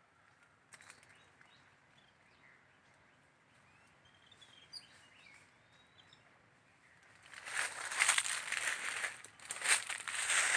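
A few faint bird chirps over quiet outdoor air. Then, from about seven seconds in, loud irregular crunching footsteps on dry fallen leaves.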